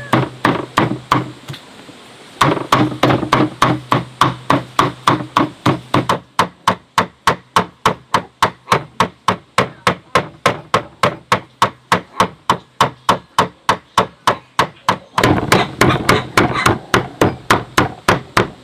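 Cleaver chopping meat on a wooden board in a steady run of strikes, about four a second, pausing briefly about a second in and growing busier near the end.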